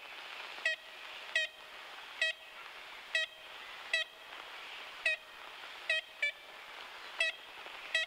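Ivory-billed woodpecker giving its kent calls: short, nasal, tin-horn-like notes repeated about once a second, some in quick pairs. They are heard over the steady hiss of a 1935 field recording.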